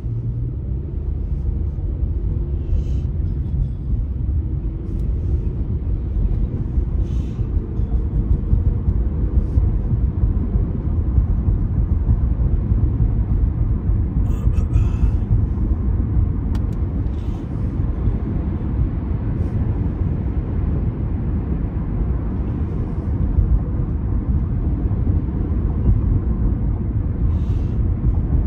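Steady low rumble of road and engine noise heard from inside a moving car while it drives along a city street.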